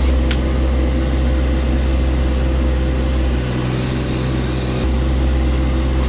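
John Deere 1025R compact tractor's three-cylinder diesel engine running steadily at working speed while it powers the backhoe digging. It makes an even low hum with a steady higher tone held over it.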